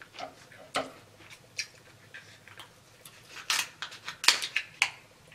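Kitchen shears working on king crab leg shell: a few scattered sharp clicks and snaps, then a quick run of them about three and a half seconds in, the loudest near four and a half seconds.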